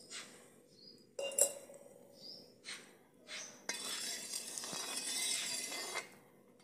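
A metal ladle clinks against a metal kadhai with a short ring about a second in, then scrapes and swishes round the pan as it stirs heating milk, a steady scraping for about two seconds before stopping near the end.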